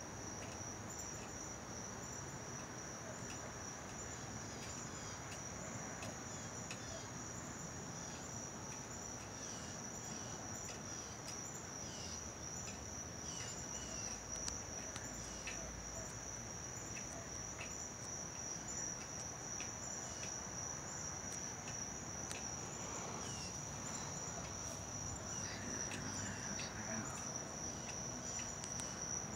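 Insects trilling in one steady, unbroken high-pitched note, with faint short chirps scattered over it.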